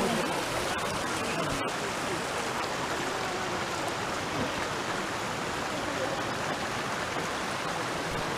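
Shallow stream running over rocks and stones, a steady close rush of water.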